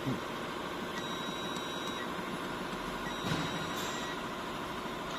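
Steady workshop machine hum, with a faint high electronic tone and a few light clicks.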